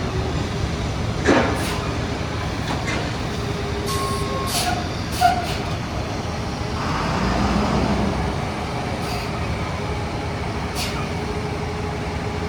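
Heavy diesel vehicles and construction equipment running steadily on a city street, with a couple of sharp knocks and a brief swelling rush a little past the middle.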